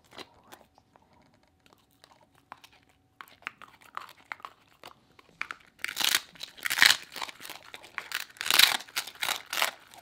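Welsh corgi crunching and chewing a long air-dried cod-skin treat. There are sparse faint crackles at first, then loud, quick crunches from about six seconds in.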